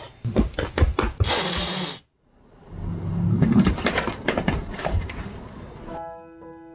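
Two cats, a Bengal and a grey cat, play-fighting on a fabric sofa: scuffling, rustling and quick thumps, with a low wavering cat vocalisation in the middle. The sound cuts out briefly about two seconds in, and soft piano music starts near the end.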